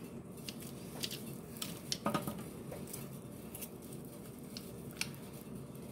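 Metal garlic press clicking and scraping against a mixing bowl as crushed garlic is worked off it into raw eggs: scattered light taps, with a small cluster about two seconds in.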